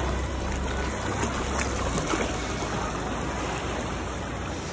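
Small waves washing and lapping against rocks at the water's edge: a steady rushing hiss.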